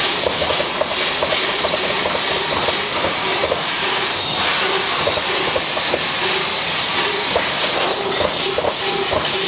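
TRUMPF CNC laser cutting machine cutting steel: a steady hiss of the cutting head's assist gas, with short tonal chirps coming every fraction of a second at irregular intervals.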